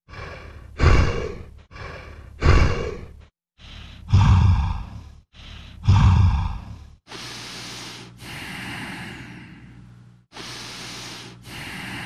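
Heavy human breathing: four quick breaths, each a soft intake followed by a louder, partly voiced exhale, then two slower, long drawn-out breaths.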